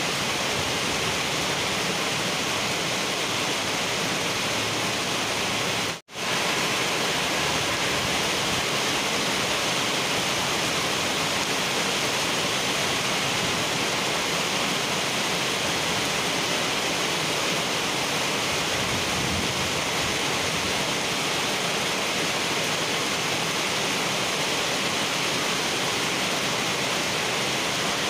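Heavy rain pouring onto a wet asphalt road: a steady, even hiss of drops splashing on the pavement and into puddles. It cuts out for a split second about six seconds in.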